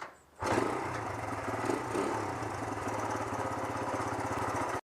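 1973 Honda CL100's small single-cylinder four-stroke engine running at a steady speed with a fast, even pulse. It starts about half a second in and cuts off abruptly near the end. The owner says this engine runs rich at idle and just off idle.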